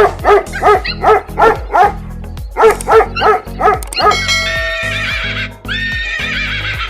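A dog barking in a quick run, about three barks a second, then from about four seconds in a horse whinnying in two long calls, over background music with a steady bass beat.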